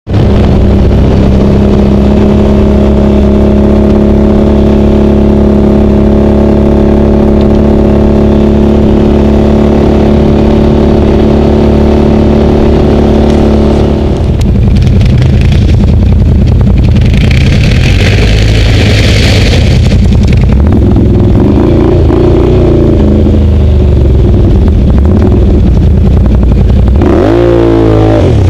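Can-Am Outlander XMR ATV's V-twin engine running at steady revs. After a cut about halfway the engine note turns rougher and changes pitch, with a few seconds of rushing hiss in the middle and a rising rev near the end.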